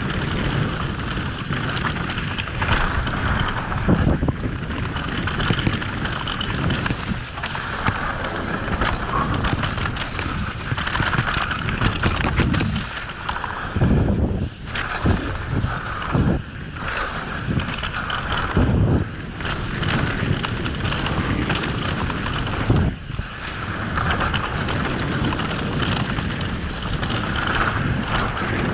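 Santa Cruz V10 downhill mountain bike ridden fast down a dirt trail: steady wind rush on the microphone over the noise of tyres on dirt, with the bike knocking and rattling over bumps and a run of hard thumps about halfway through on a rough, rutted section.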